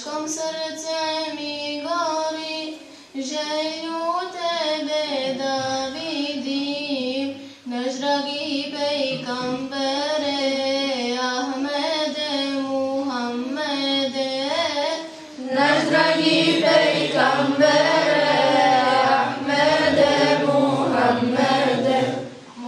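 A group of children and women singing an ilahija, an Islamic devotional hymn, phrase by phrase with short breaths between lines. About fifteen seconds in, lower voices join and the singing grows louder.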